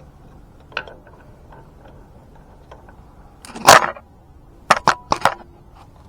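Metal parts of a floor jack's height extension adapter and its hex bolts being handled during assembly: a single click, then a short loud clatter about halfway through, then four quick sharp clicks.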